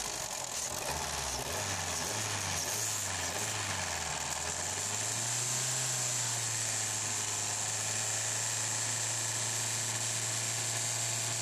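Ford 1.3-litre four-cylinder petrol engine running near idle. Its low hum wavers for the first few seconds, then rises slightly about five seconds in and holds steady.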